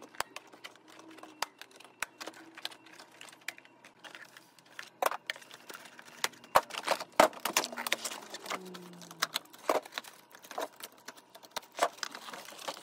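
Unboxing sounds: irregular sharp clicks, taps and knocks of a hard plastic toy blaster and its cardboard box as the blaster is cut free of its ties and handled. The clicks are loudest and thickest a little past the middle.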